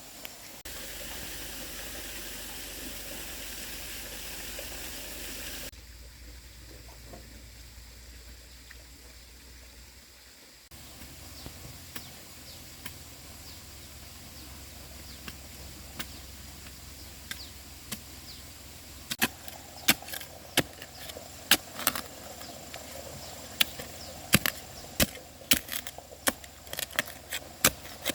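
Steady background noise that changes abruptly a few times, then, from about two-thirds of the way in, a run of sharp knocks coming at irregular intervals, several a second at times.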